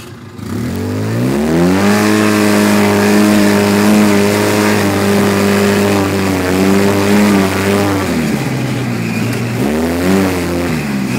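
Polaris RZR side-by-side's engine accelerating hard: the revs climb over the first two seconds, hold high and steady for about six seconds, then drop. Near the end they rise and fall once more in a short burst of throttle.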